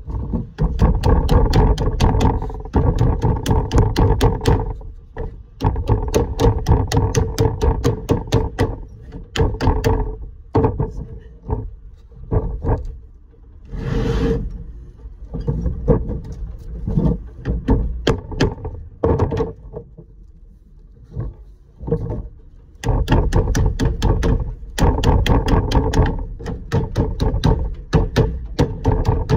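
Rapid repeated strikes of a lead dresser on code 5 sheet lead, dressing and folding it into shape, several strikes a second in runs of a few seconds with short pauses between.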